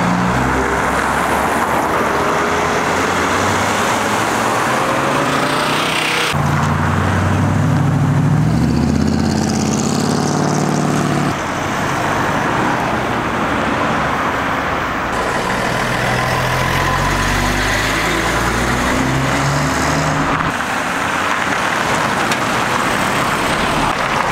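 Cars driving past one after another, their engines running and accelerating away with rising pitch, over steady road traffic noise. The sound changes abruptly several times, with the loudest engine passing about halfway through.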